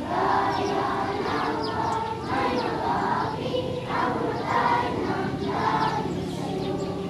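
Schoolchildren singing together as a group, in long held notes.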